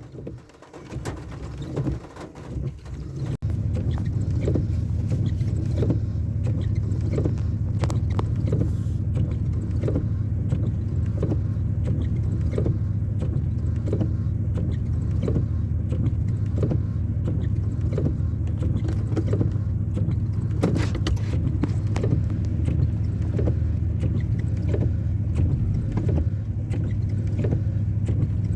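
An engine running steadily, setting in abruptly about three seconds in, with a faint regular tick about once a second.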